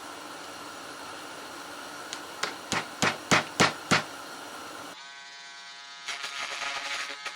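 Hammer tapping a small finishing nail into asphalt shingle on a wooden bird feeder: about seven taps at roughly three a second, getting louder. About six seconds in, a steady buzzing starts.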